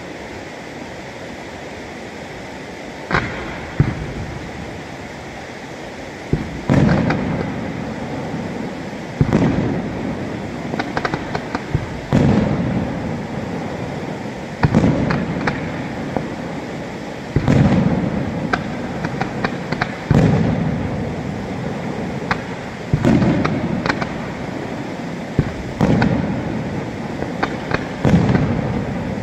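Aerial firework shells bursting one after another, a deep bang every two to three seconds, each followed by a long fading rumble, with smaller sharp cracks and crackles in between. The first few seconds, before the first bangs, hold only a steady background hiss.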